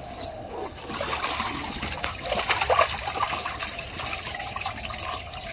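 Water splashing and sloshing in a plastic tub while a dog is washed in it, with a steady trickle of running water underneath; the splashing is busiest about halfway through.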